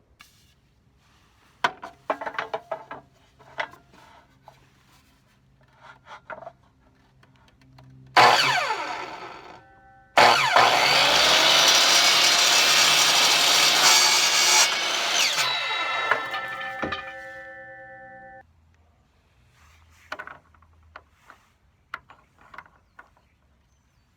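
Electric power tool cutting oak for a homemade caster wheel: a short run about eight seconds in that spins down, then a longer cut of about eight seconds that winds down. Light clicks and knocks of handling the wood and tool before and after.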